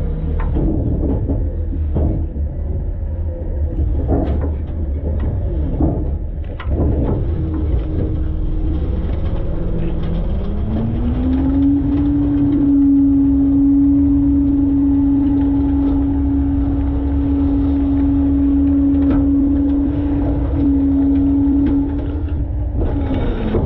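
Front-load garbage truck heard from inside its hopper: a low engine rumble with scattered knocks and bangs, then about ten seconds in the engine revs up and holds a steady high drone for about ten seconds, the raised engine speed that drives the hydraulics, before dropping back near the end.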